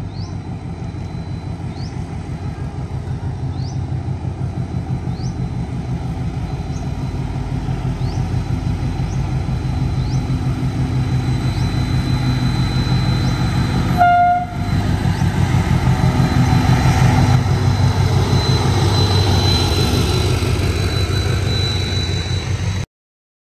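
D18E diesel locomotive passing with its train, the engine running and growing steadily louder as it approaches. A short horn toot sounds about two-thirds of the way through, and the sound cuts off suddenly near the end.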